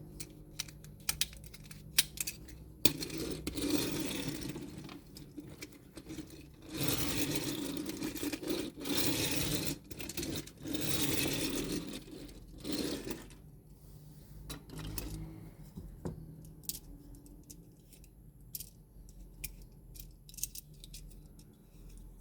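Toy packaging being unwrapped by hand: a few bursts of plastic rustling, each lasting a second or two, between light clicks and taps of small plastic parts.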